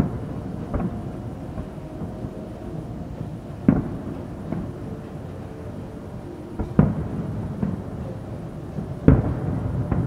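Aerial fireworks shells bursting: a series of booms roughly every three seconds, each trailing off in a low rolling rumble like distant thunder.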